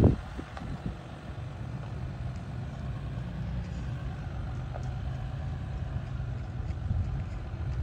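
Jeep Wrangler Unlimited Rubicon's engine running steadily at low revs as it crawls slowly up a steep dirt hump, heard from outside as a low hum. A brief thump at the very start.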